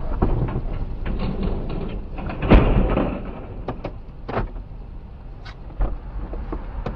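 Small enclosed three-wheeled vehicle tipping over in a crash: a loud thud about two and a half seconds in, then a few sharp knocks and clicks, over a low steady vehicle rumble.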